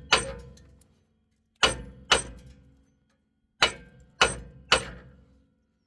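Hammer striking the bad rear wheel hub assembly of a 2015 Chrysler Town & Country, six sharp metal blows in twos and threes, each leaving a short ring, to drive the seized hub out of the knuckle.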